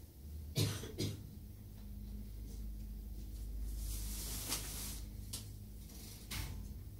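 Large passenger elevator running: a steady low hum, with two clunks early on and a few lighter clicks and a swell of hiss later.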